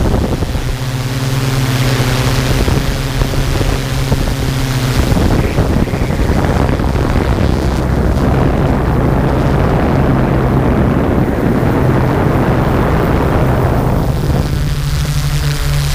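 Small multirotor drone's motors and propellers humming steadily in flight, with wind rushing over the microphone.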